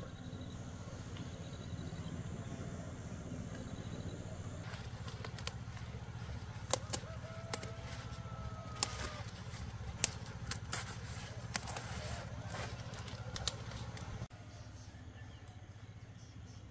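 A chicken gives one drawn-out call, among a run of sharp clicks and knocks, over a steady low rumble that cuts off near the end.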